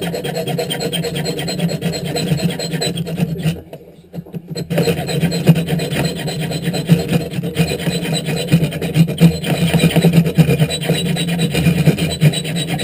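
Leatherman Charge TTI's diamond file rasping steadily back and forth across a steel bolt held in a vise, sawing through it. It stops briefly about four seconds in, then the filing picks up again.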